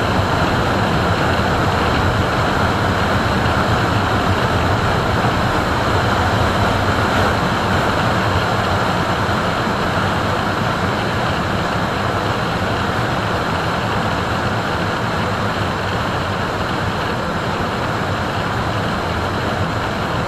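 Royal Enfield Meteor 350's single-cylinder engine running at highway cruising speed, heard under a steady rush of wind and road noise. It eases off a little in the second half.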